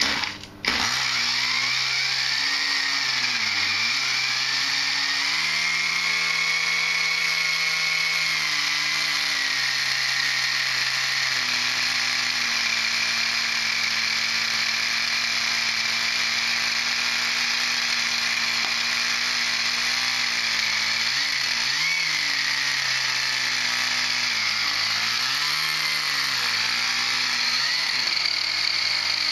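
Small model engine in a rebuilt diesel-electric model tram catching at once on its first start, stuttering briefly, then running steadily with a high, rasping buzz. Its speed dips and recovers a few times, around 3 seconds in and again late on.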